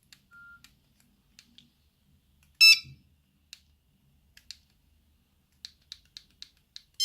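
Nokia 6310i keypad buttons clicking as the phone's menus are worked through: single presses every second or so, quickening to a few a second near the end. A faint short beep sounds near the start, and a louder, brief electronic beep with several tones comes a little before three seconds in.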